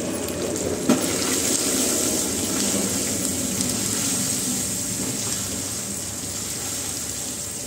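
Onion, peanut and turmeric masala frying in oil in a kadhai, a steady sizzle as it is stirred with a silicone spatula, with one sharp knock about a second in.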